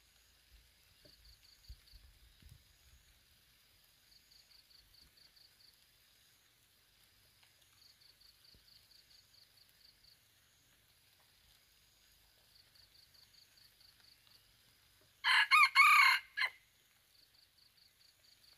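A red junglefowl rooster crows once near the end, a short, broken crow and the loudest sound here, over faint, evenly repeating insect chirping.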